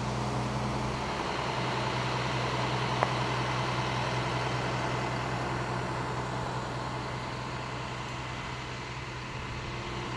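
A large vehicle's engine idling steadily in the background, a continuous low hum, with a single sharp click about three seconds in.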